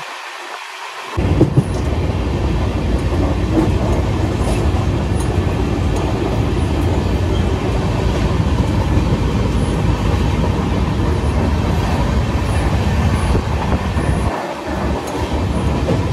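Passenger train running: a loud, steady rumble of the coach and its wheels on the rails, cutting in suddenly about a second in.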